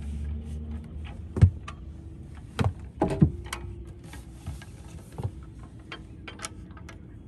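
Irregular knocks and clicks, the loudest about a second and a half in and twice around three seconds in, over a low hum that stops after about a second and a half.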